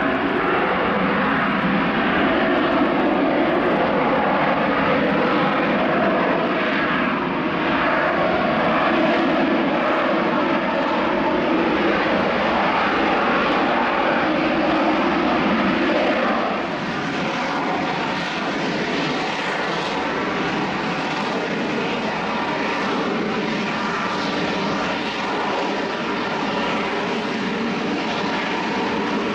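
EAV-8B+ Harrier II's Rolls-Royce Pegasus turbofan running at hover power, a steady jet roar. It drops a little in level about sixteen seconds in, leaving a faint whine showing through the roar.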